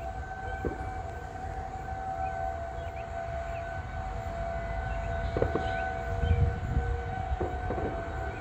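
Federal Signal 2001-SRN outdoor warning siren sounding a severe thunderstorm warning, holding a steady pitch. A low rumble runs underneath and swells about five to six seconds in.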